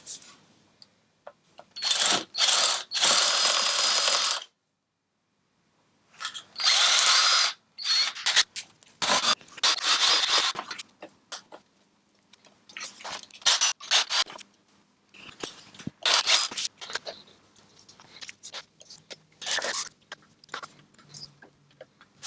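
Power drill drilling out the rivets that hold the end cap of a titanium motorcycle exhaust silencer, run in bursts: two long stretches of a few seconds near the start, then many short stop-start bursts.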